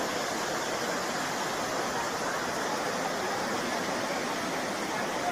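Flash-flood water rushing past in a steady, even noise.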